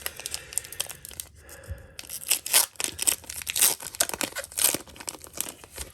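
Pokémon trading card booster pack wrapper being torn open by hand: a run of crackly ripping sounds, sparse at first and densest in the middle to late part.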